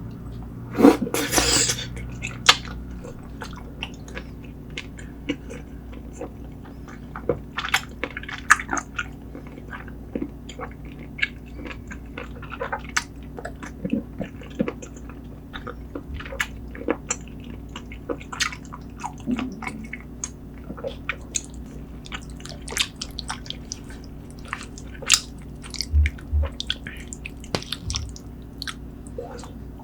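Close-miked chewing and wet mouth sounds of someone eating spicy braised seafood and short ribs, many short irregular clicks and smacks. A brief louder noise about a second in.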